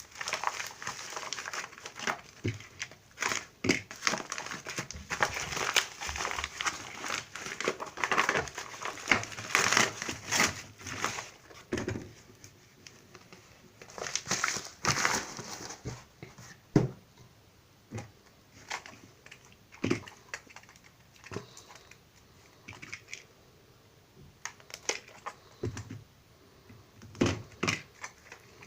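Packaging crinkling and crumpling as a parcel is unwrapped by hand: a dense run of crinkling for the first half, then a short burst, then scattered rustles and light knocks.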